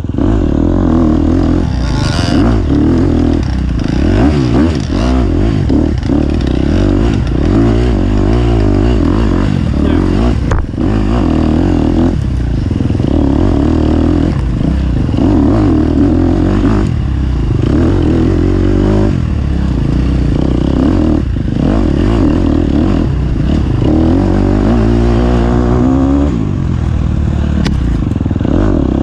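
Engine of an off-road race machine heard on board during a lap, running hard, its revs repeatedly climbing and then dropping off every second or two.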